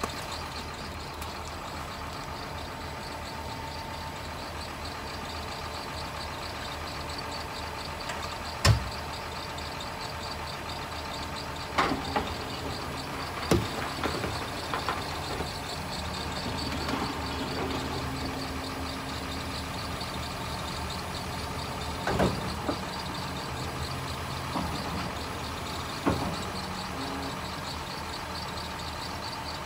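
John Deere 850K crawler dozer's diesel engine idling steadily, with a fast light ticking over the hum. A few sharp knocks and clunks break in, the loudest about nine seconds in.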